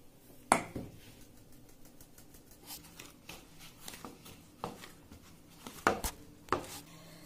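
Gloved hands working flour into egg batter in a plastic bowl: scattered light clicks and knocks of handling, with a sharp knock about half a second in and a cluster of louder ones around six seconds.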